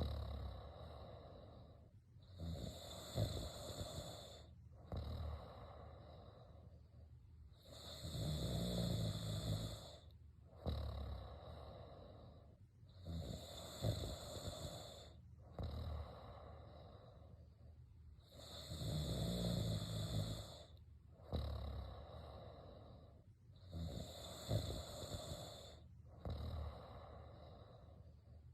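A person snoring in sleep: a loud snore about every five to six seconds, five in all, with quieter breathing sounds between them.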